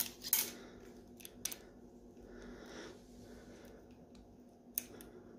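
Small clicks and ticks of fingers handling a remote lockout cable and its clamp on the top-cap lever of a RockShox SID suspension fork. There are a few short, sharp clicks, the loudest at the start and another near the end.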